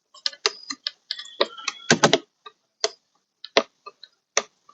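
A run of sharp, irregular plastic clicks and taps from door-panel trim clips being worked by hand, loudest in a cluster about two seconds in; some clicks ring briefly.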